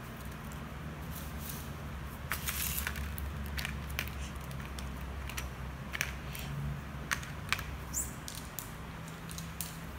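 Clear plastic blister tray of a modelling-dough set crinkling and clicking in short bursts as plastic shape cutters are pried out of it, over a steady low hum.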